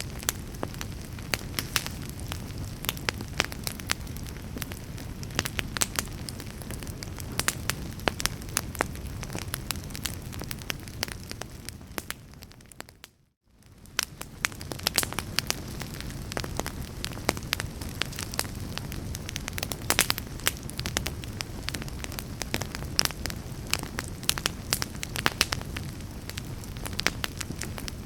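A fire burning, with frequent sharp crackles and pops over a low steady rumble. About halfway through, the sound fades out to near silence for a moment and then fades back in.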